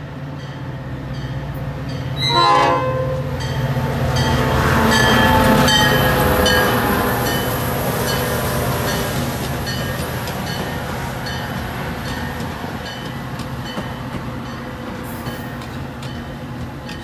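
Metra commuter train passing close by: the diesel locomotive's rumble builds to its loudest about five seconds in as it goes past, then eases as the stainless-steel bilevel cars roll by. A short horn blast sounds about two seconds in, and a grade-crossing bell dings steadily throughout.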